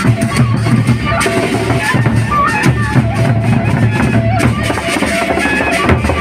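Gendang beleq ensemble playing: deep drums beating steadily under a stepped melodic line, with frequent sharp metallic strokes.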